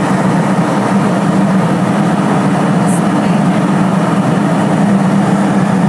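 Steady drone of an airliner in flight heard inside the cabin: engine and airflow noise with a strong low hum.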